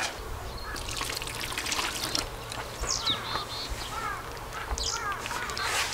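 Water poured from a plastic bottle splashing and trickling onto a cellular EVA car floor mat, faintly, with a few bird chirps in the background.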